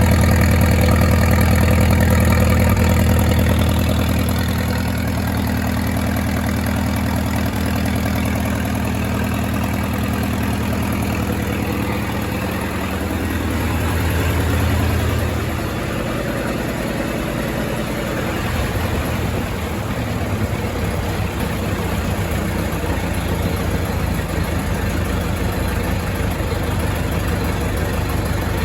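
1928 Farmall Regular's four-cylinder engine running at idle after its oil change, its note changing about halfway through.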